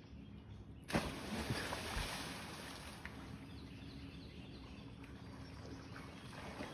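A person jumps feet-first into lake water with one sudden, loud splash about a second in, followed by lighter splashing and sloshing as he swims.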